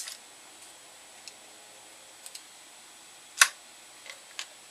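Metallic clicks of a Henry AR-7 survival rifle being handled and readied to fire. There are a few light ticks and one sharper click about three and a half seconds in.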